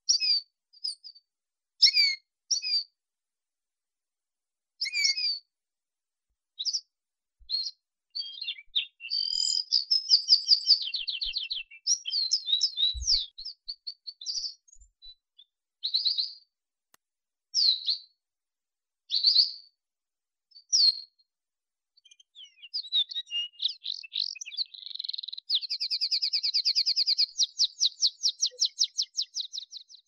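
Canary (Serinus canaria) singing. It starts with separate short chirps and whistles, then moves into runs of rapid trills with short pauses between phrases. It ends in a long, fast trill of evenly repeated notes.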